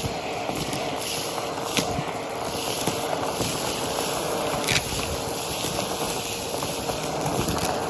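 Vacuum cleaner with a dusting brush attachment running steadily: a constant rush of suction with a faint steady hum, broken by a few sharp clicks.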